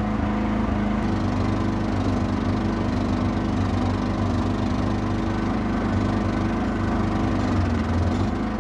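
Small excavator's diesel engine running steadily, with a brief change in its note near the end.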